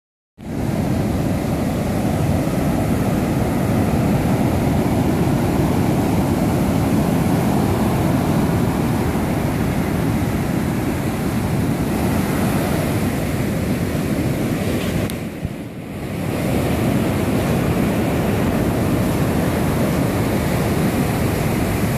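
Ocean surf breaking and washing up a sandy beach, mixed with wind buffeting the microphone: a steady, loud rush that drops away for about a second roughly fifteen seconds in.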